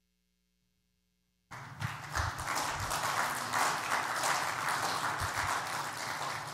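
Near silence, then about a second and a half in a congregation starts applauding: a dense spread of many hands clapping.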